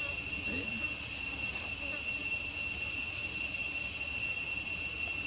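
Steady, high-pitched drone of an insect chorus, a two-toned whine that holds unchanged throughout.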